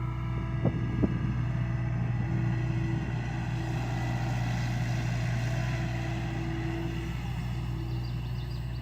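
John Deere excavator's engine running steadily with a low hum, with two sharp knocks about a second in and a hiss that swells and fades in the middle.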